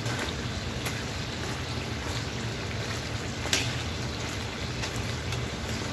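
Potato slices deep-frying in hot oil in a two-basket fryer as they begin to brown: a steady sizzle with scattered crackles over a low hum, and one sharper click about three and a half seconds in.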